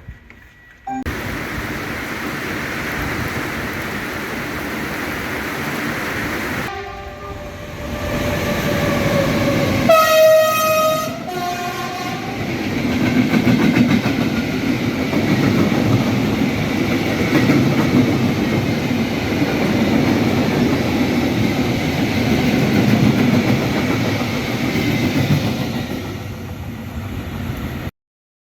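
A train sounds its horn, a short tone about seven seconds in and a louder, longer blast about ten seconds in, then runs through the station with a steady rumble and wheels clattering on the rails.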